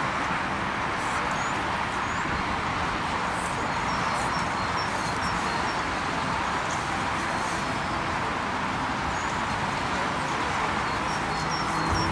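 Steady background noise, with small birds chirping in short high notes now and then.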